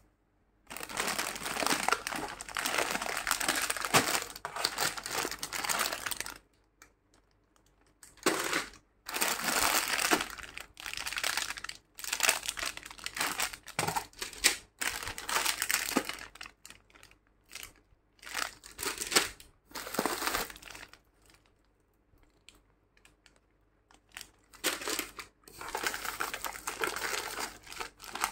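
Plastic bags and packets of mothballs crinkling as they are handled and shifted about in a cardboard box. The crinkling comes in bursts of a few seconds with short quiet pauses between them, the longest near the start.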